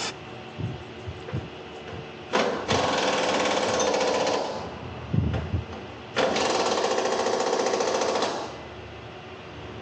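Impact wrench hammering in two bursts of about two seconds each, with a few short knocks between them.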